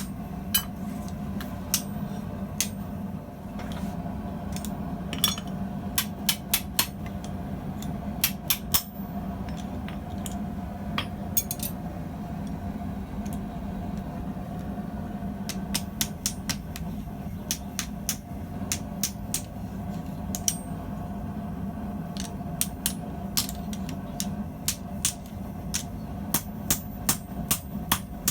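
Hand hammer striking hot steel tubing on an anvil, in runs of quick blows broken by short pauses, over a steady low hum.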